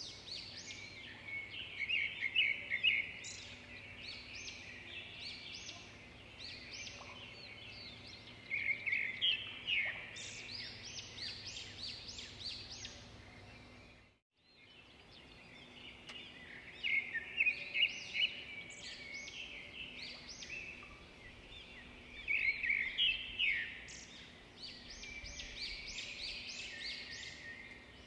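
Birds chirping in short, irregular flurries every few seconds over a faint steady hum, as a background ambience track. It cuts out completely for a moment about halfway through and then starts over.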